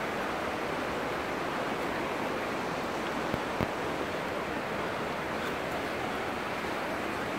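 Steady rush of flowing river water, an even constant noise, with two faint clicks a little over three seconds in.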